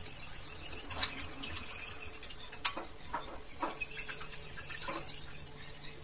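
Metal spoon stirring toothpaste into water in a glass bowl, with light clinks and taps of the spoon against the glass and one sharper clink about two and a half seconds in.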